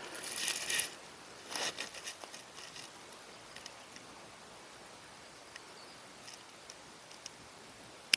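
Close handling noises of small fishing gear: two short spells of rustling and light clicks in the first two seconds, then only a faint hiss, and one sharp click near the end.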